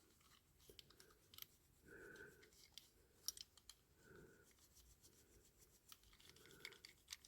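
Near silence, with faint small clicks and soft rubbing of a polishing rag on a diecast model car being buffed and handled.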